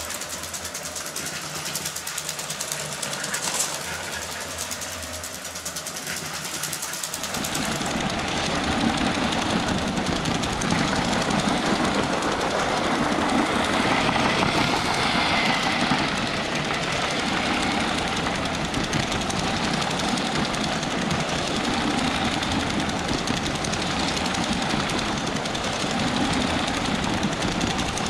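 Lego 7730 12-volt electric train running on its track: the locomotive's electric motor and the wheels of the loco and wagons rolling on plastic rails, a steady mechanical running noise. It grows fuller and louder about seven seconds in as the train comes close, then runs on steadily.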